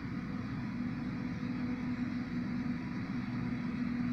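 New Holland FX58 self-propelled forage harvester chopping maize, with a tractor and trailer running alongside: a steady machine drone with a constant low hum that grows a little stronger about a second and a half in.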